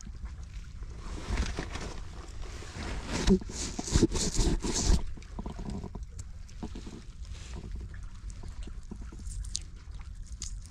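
Wind buffeting the microphone at the shore, louder in gusts about three to five seconds in, with sea water sloshing among the rocks.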